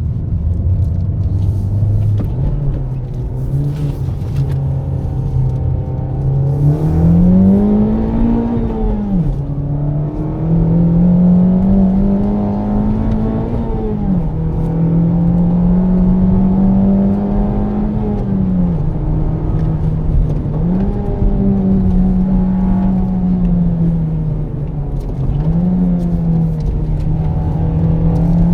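Honda Civic Type R FK8's turbocharged 2.0-litre four-cylinder heard from inside the cabin. The engine note climbs under acceleration and drops sharply at several gear changes, with stretches of steady cruising and short throttle blips in between.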